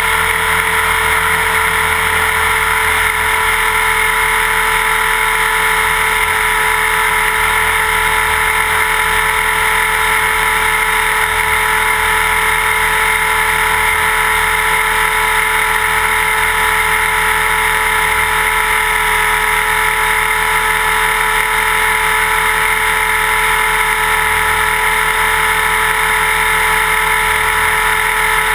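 Align T-Rex 550E electric RC helicopter in flight, heard from a GoPro mounted under it: the motor, drive gears and rotor blades make a loud, steady whine of several held tones over a rushing noise.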